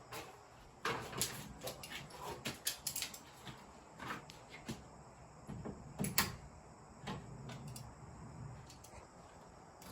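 Scattered light knocks and clicks of hand work on a wooden window frame as temporary spikes are pulled out, with one sharper knock about six seconds in.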